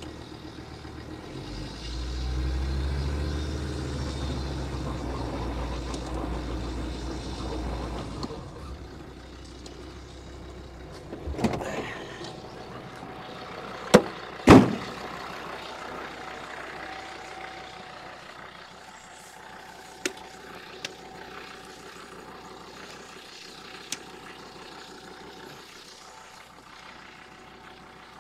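A vehicle engine running low for the first several seconds, then fading away. About halfway through comes a vehicle door shutting with two sharp bangs close together, followed by a few light knocks.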